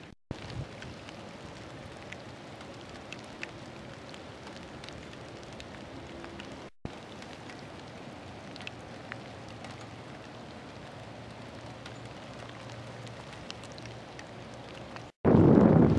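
Freezing rain falling steadily, with scattered small ticks of drops striking. The sound drops out briefly twice, and near the end gives way to loud wind rumbling on the microphone.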